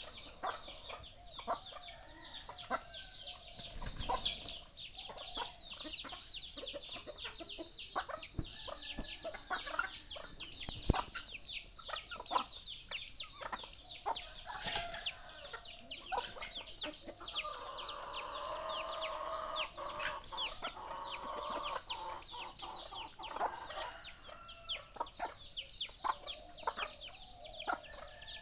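Birds chirping rapidly and without pause, with a longer, lower call lasting several seconds just past the middle. A couple of dull thuds stand out early on.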